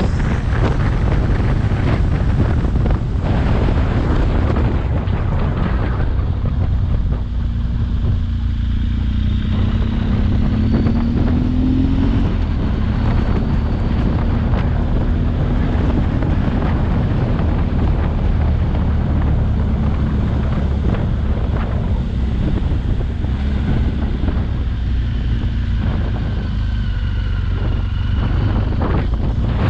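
Motorcycle engine running under way, heavily masked by wind buffeting on the microphone; the engine note rises briefly in pitch about ten seconds in.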